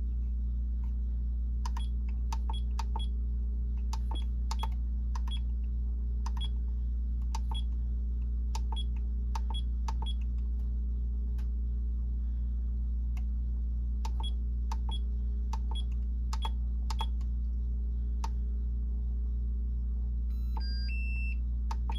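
Buttons on an Ultra Power UP200 DUO battery charger pressed again and again, each press a short click, with a few short electronic beeps at different pitches near the end as the setting takes. A steady low hum runs underneath.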